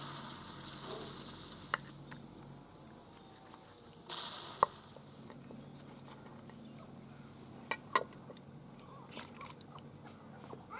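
A knife cutting raw chicken on a cutting board: scattered sharp knocks of the blade on the board, the loudest about halfway through, with soft handling noise in between.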